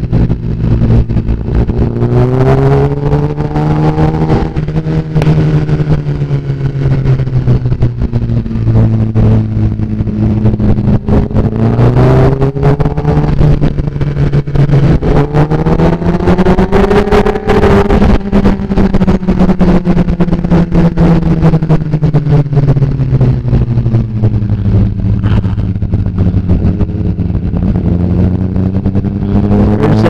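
Sport bike engine through an Austin Racing aftermarket exhaust, running in gear while riding. Its pitch rises and falls gently several times, highest about halfway through, with wind buffeting the microphone.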